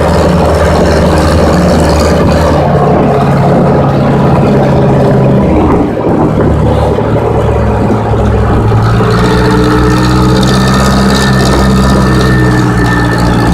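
Diesel engine of a Case 580E backhoe running steadily, heard from inside the cab, with a brief dip and a change in the engine note about six seconds in.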